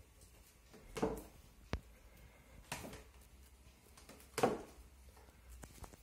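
Clear high-heeled sandals stepping slowly down wooden stairs: three heavy heel-and-sole knocks on the wooden treads about a second and a half apart, a sharp single click between the first two, and fainter knocks near the end as she reaches the bottom.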